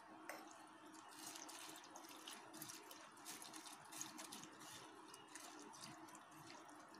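Water poured from a jug over flattened rice (poha) in a steel mesh strainer as it is washed: faint trickling and splashing, with many small ticks as the wet flakes are stirred with a spoon.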